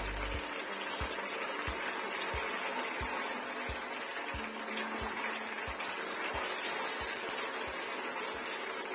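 Thick Manchurian sauce bubbling in a non-stick wok over a gas flame while cornflour slurry is stirred in to thicken it: a steady hiss with soft low pops every half second or so.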